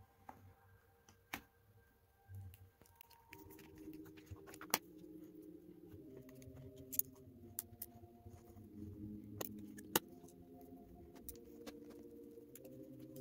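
Sharp clicks and small metallic clinks of laptop parts and screws being handled as an internal battery is fitted into a ThinkPad T470s. From about three seconds in, soft background music with sustained chords sits under them.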